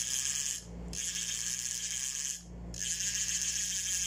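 A G-Luck one-ball-bearing spinning reel cranked by hand in short runs, its rotor and gears turning with a fast, even clicking rattle. One run stops about half a second in, and two more follow, each about a second and a half long with a brief pause between.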